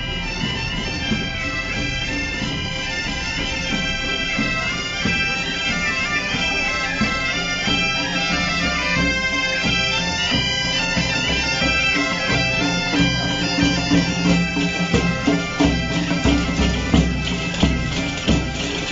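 Several bagpipes playing a folk tune over a steady drone. In the second half, loud regular percussion beats join in, tambourines among them.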